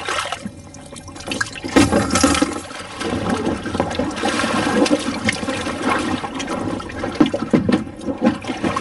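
Sea water splashing and sloshing against the side of an inflatable boat as a wetsuited diver moves in the water beside it and heaves himself onto the pontoon, with irregular knocks and splashes.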